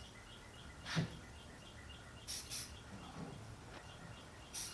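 Short hissing bursts of Rust-Oleum camo spray paint from an aerosol can, sprayed through broom bristles: two quick sprays about two and a half seconds in and two more near the end. A dull thump about a second in is the loudest sound, and a faint high chirp repeats a few times a second underneath.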